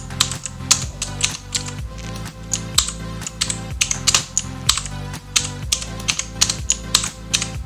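Background music playing over sharp, irregular clicks from a mechanical keyboard with blue switches, the Redgear Shadow Blade MK853, as its keys are pressed.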